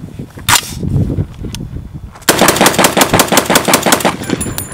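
A single loud clack about half a second in, then a Noreen Firearms Bad News .338 Lapua Magnum semi-automatic rifle fires a rapid string of shots, a magazine dump. The shots start a little over two seconds in and last about two seconds.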